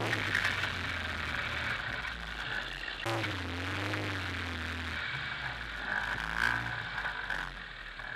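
Off-road 4x4 engine running under load in low gear on a rough trail, its note picking up about three seconds in and dropping back about two seconds later, with occasional knocks and clatter from the vehicle.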